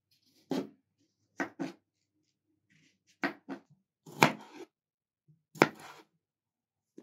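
Kitchen knife slicing cucumber and tomatoes on a plastic cutting board: about seven irregularly spaced cuts, each ending in a knock of the blade on the board.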